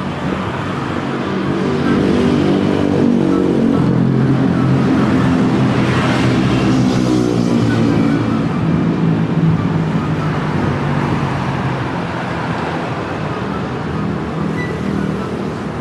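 A motor vehicle's engine passing close by: its hum builds, is loudest about six to seven seconds in, then fades, over steady traffic noise.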